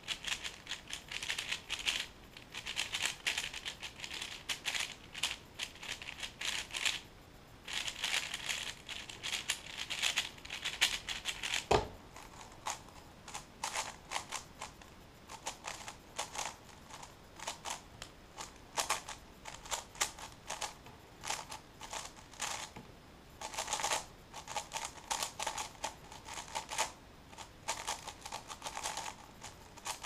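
A plastic 6x6 speedcube being turned fast by hand: runs of rapid clicking and clacking layer turns, broken by short pauses, with a single sharper knock about twelve seconds in.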